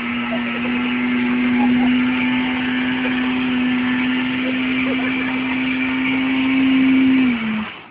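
Motorcycle engine held at high, steady revs during a burnout, the rear wheel spinning in place. The pitch dips slightly near the end and the sound cuts off abruptly.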